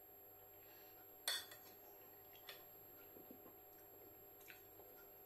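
A metal spoon clinks against a bowl while scooping food: one sharper clink about a second in, then a few faint ticks, in an otherwise near-silent room.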